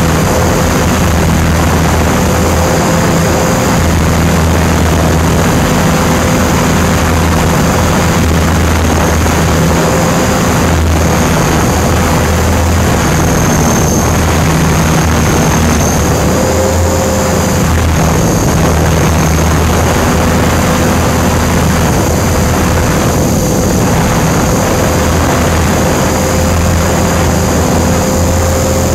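Align T-Rex 500 electric RC helicopter heard through its onboard camera in fast forward flight: a steady rotor and motor sound with a high whine, over heavy wind rush on the microphone.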